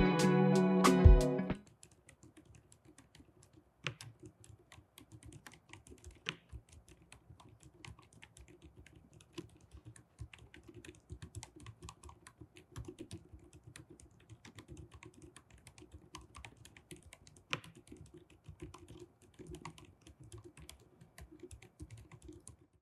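Typing on a COX CSK105 low-noise mechanical keyboard with OUTEMU silent peach V3 linear switches and silicone sound dampening: a fast, irregular run of faint, soft keystrokes with a few louder key hits. Music plays for about the first second and a half, then cuts off.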